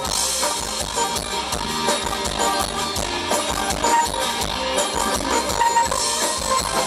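Thai ramwong dance music from a live band: a steady, even drum beat under a repeating melody line.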